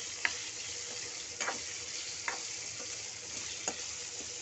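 Cubed boiled potatoes sizzling steadily in hot oil with cumin and carom seeds, stirred with a spatula that knocks against the frying pan about once a second.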